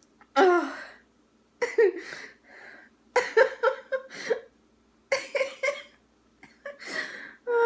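A woman in an uncontrollable fit of laughter: about five bursts of rapid, pulsing laughter with short pauses between them.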